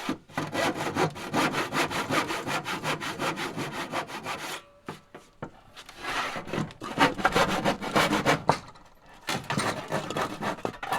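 Handsaw cutting through a pine board in rapid back-and-forth strokes, cutting out a notch. It stops briefly twice, about four and a half and eight and a half seconds in.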